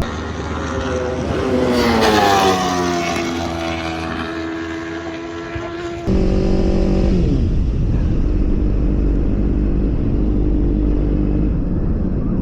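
Racing motorcycle engine at speed on a circuit. The note climbs for about two seconds, then falls steadily for several seconds as it passes or rolls off. About six seconds in it changes abruptly to a steadier engine note that drops in pitch once.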